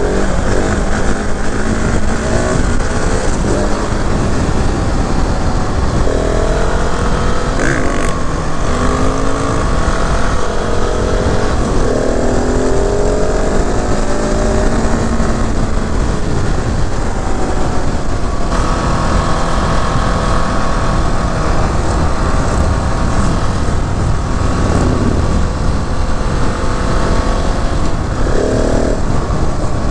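KTM 690 SMC R's single-cylinder engine under way, its pitch rising as it accelerates and dropping at each gear change, again and again.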